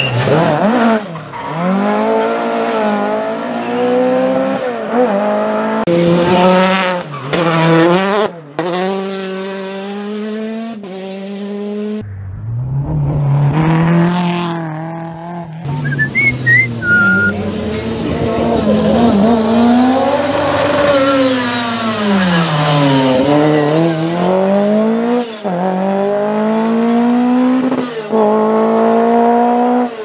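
Historic rally car engines at full throttle on a tarmac stage, starting with a 1974 Ford Escort Mk1 in a hairpin. Over several passes the revs climb and drop sharply again and again with gear changes and lifting off.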